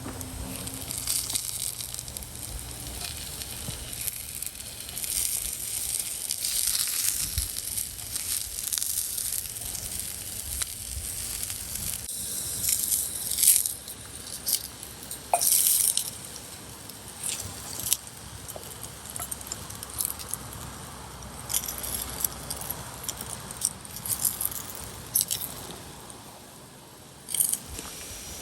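Food sizzling in a hot pan: a steady frying hiss that flares louder now and then, with scattered small clicks and clinks.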